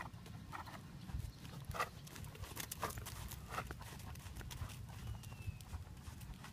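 Hoofbeats of a ridden Thoroughbred horse moving over arena sand, a few soft, uneven strikes a second over a steady low rumble.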